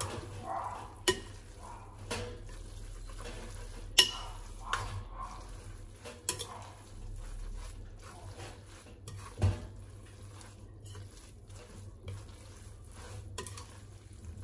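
Metal spoon tossing rice vermicelli in a glass bowl: a soft, even mixing noise, with a sharp clink of spoon against glass every second or two, about six in all, the loudest about four seconds in.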